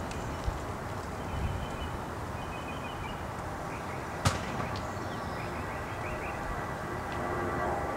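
Outdoor ambience: a steady rushing background noise with faint high bird chirps, and a single sharp click about four seconds in.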